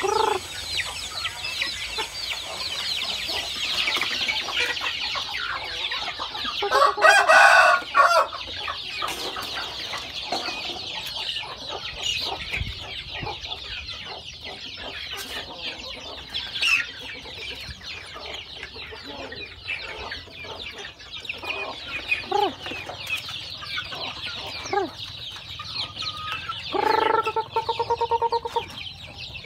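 A flock of young chickens peeping in a dense, high chorus, with clucks and short calls among them. There is one loud call about seven seconds in, and a rooster crows near the end.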